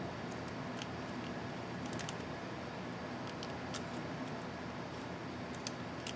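Scattered faint sharp clicks and ticks of small plastic and metal laptop keycap parts being handled, over a steady background hum and hiss.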